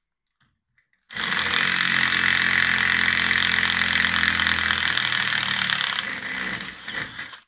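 Dexter cordless impact driver hammering a long screw into a timber beam. It starts about a second in, runs steadily for about five seconds, then eases off and stops near the end as the screw is driven home.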